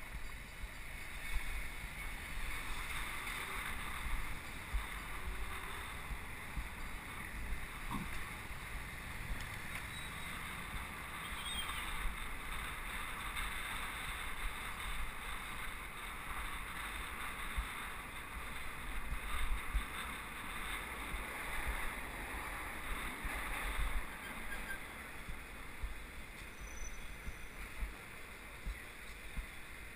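Wind buffeting the microphone of a camera riding along on a bicycle, a gusty low rumble over a steady hiss of city traffic and tyres on the road. A single brief knock comes about eight seconds in.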